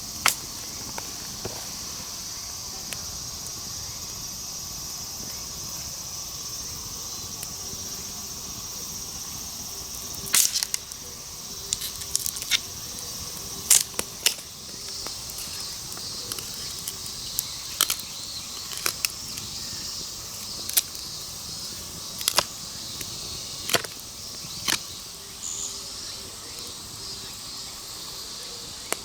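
Steady high drone of insects in the background, with a dozen or so sharp, irregular clicks and snaps starting about ten seconds in.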